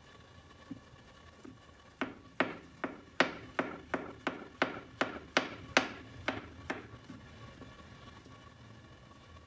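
Kitchen knife slicing button mushrooms on a plastic cutting board: about thirteen sharp chops, roughly three a second, starting about two seconds in and stopping near seven seconds.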